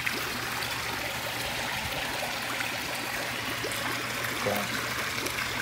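Water steadily running and trickling into a backyard fish pond, with a faint low steady hum underneath.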